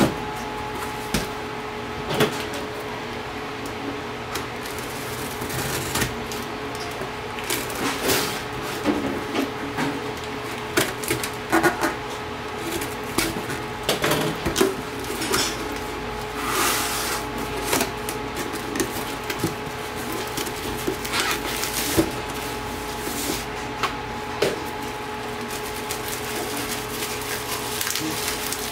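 Cardboard shipping box handled and opened by hand: irregular knocks and scrapes of the box on the table and rustling of flaps and packing tape. Near the end there is the crinkle of bubble wrap as the item is pulled out. A faint steady hum runs underneath.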